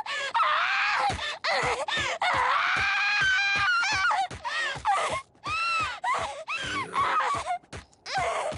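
A voice wailing and crying in repeated short, broken cries whose pitch swoops up and down.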